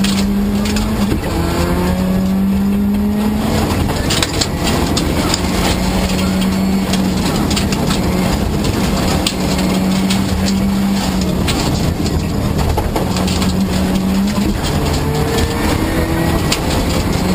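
Rally car's engine heard from inside the cabin at high revs, its pitch climbing and dropping back several times as it shifts through the gears, with many sharp ticks of gravel striking the car's underside.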